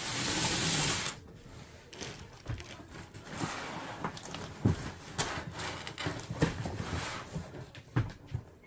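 Packaging being handled and opened: a burst of rustling for about the first second, then scattered light scrapes, rubs and small knocks.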